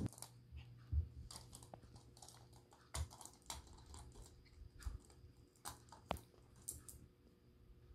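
A Morkie puppy chewing and gnawing a small plastic Happy Meal toy: faint, irregular clicks and crunches of teeth on plastic.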